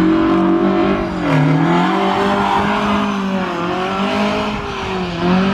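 Mk2 Ford Escort drift car's engine held at high revs while the car slides sideways. The revs dip and climb again about a second in and again near four seconds, with tyre squeal under the engine note.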